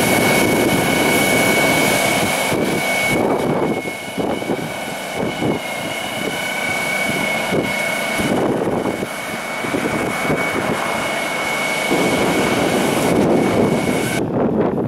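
Truck-mounted road sweeper running as it cleans the road surface: a steady high-pitched whine over a loud rushing noise. The whine cuts off near the end.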